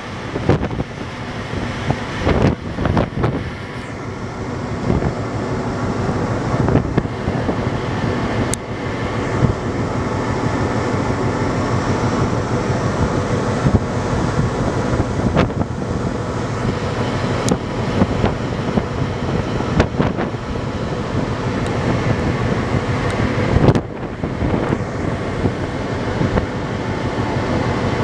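Steady rumble and hum of the Interislander ferry's engines and machinery under way, with wind gusting on the microphone and a few sharp clicks.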